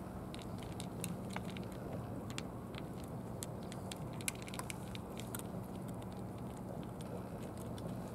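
A cat crunching dry kibble: irregular, sharp little crunches as it chews, over a steady low hum.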